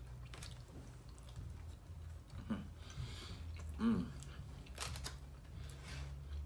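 A man chewing food close to the microphone, with scattered smacking clicks and two short vocal sounds about two and a half and four seconds in. A steady low hum runs underneath.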